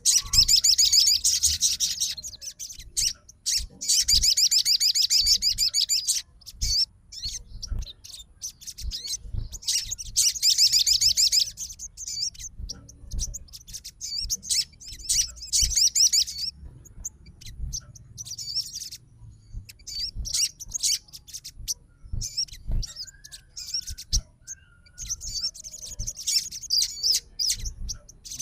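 Sogon, a small sunbird, singing: rapid high-pitched chattering trills in bursts of one to two seconds, with shorter trills between them. This is the excited call of a male 'fighter' sogon challenging a rival.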